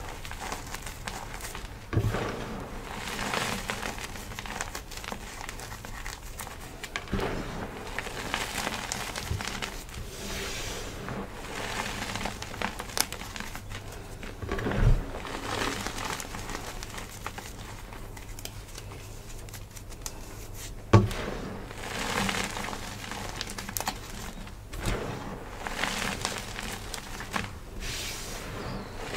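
Hands squeezing, crumbling and heaping loose dyed gym chalk powder: soft, irregular crunching and rustling in uneven swells, with a few sharp thumps, the loudest a little past two-thirds of the way through.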